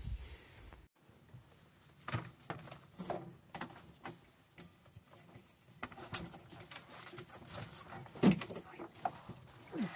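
Scattered knocks, taps and light scrapes of wooden kitchen cabinet units being handled and fitted into place inside a van, the loudest knock about eight seconds in.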